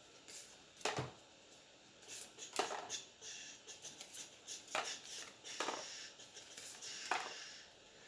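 Trading cards and a booster pack being handled at a table: a series of sharp taps and snaps with rustling in between.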